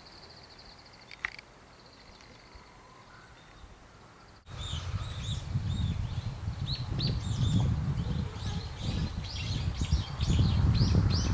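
Birds chirping, many short high calls in quick succession, from about halfway through. An uneven low rumble on the microphone comes in with them. Before that it is quiet apart from a faint steady high tone and a single click.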